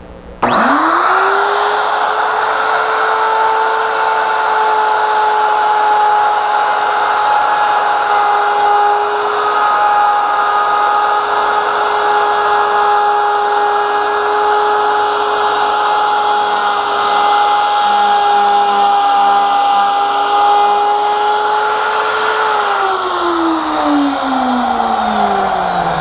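Electric plunge router switched on, its motor spinning up quickly to a steady high whine and running while the bit cuts a quarter-inch rabbet along the edge of a board. Near the end the router is switched off and its pitch falls as the motor winds down.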